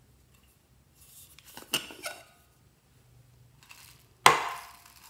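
Plastic container being handled over a glass dish: a few clicks and rattles as it is opened, then one loud sharp knock against the glass, with a short ringing tail, as it is tipped out and foam beads spill into the dish.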